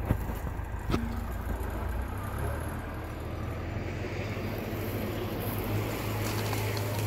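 Diesel engine of an International TD8G crawler dozer running steadily, with a sharp knock about a second in.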